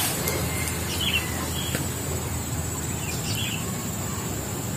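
Birds chirping a few times over a steady low background rumble, with a thin steady high insect drone throughout.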